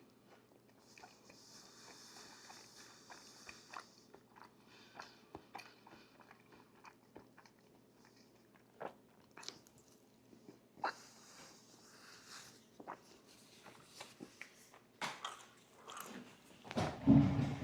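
Close-miked eating: scattered small clicks and crunchy chewing with spells of high rustle, then a loud, heavy bump near the end.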